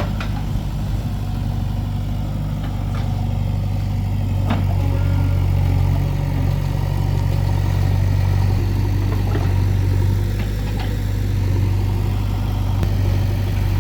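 Diesel engine of heavy earthmoving machinery, a backhoe loader or a tractor, running steadily, with a few short metallic clanks now and then.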